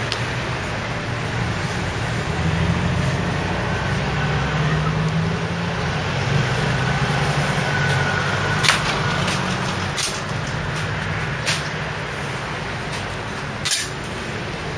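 A motor vehicle's engine running with a steady low hum, growing louder about two seconds in, over general street noise, with four sharp clicks in the second half.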